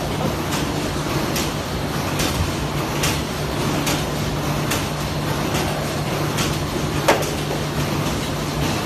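Aoger automatic die-punching machine for corrugated board running, with a steady low hum and a sharp clack repeating a little more than once a second, one per press cycle. One clack about seven seconds in is louder than the rest.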